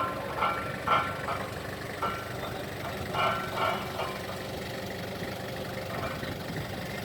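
An engine idling steadily, a low even hum, with a few short bursts of voices over it.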